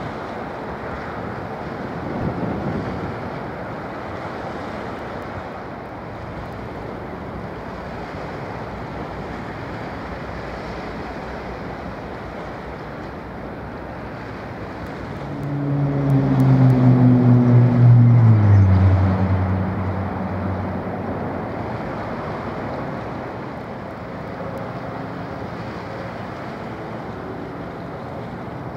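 Wind buffeting the microphone over waves washing. About halfway through, a louder engine drone rises up, then falls steadily in pitch over a few seconds and fades.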